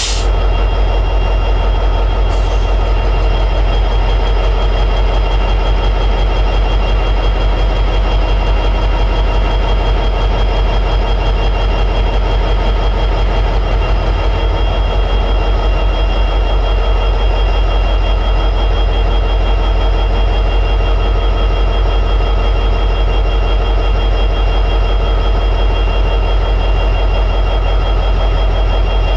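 EMD 710G3B 16-cylinder two-stroke diesel prime mover running steadily at high idle: a deep, even rumble with a steady high whine over it. A brief faint click sounds about two seconds in.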